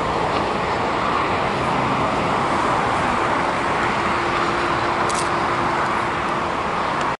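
Boeing 747-8F's four GEnx-2B turbofans running at taxi power: a steady, even jet roar, with a faint steady hum joining partway through.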